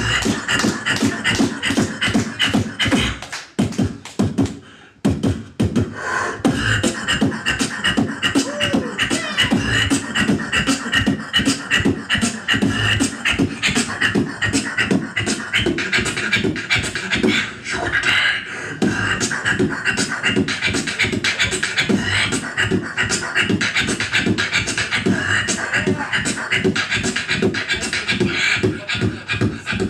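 Beatboxer performing: fast vocal drum beats of kicks, snares and hi-hat sounds made with the mouth, with a short break about four seconds in before the rhythm picks up again.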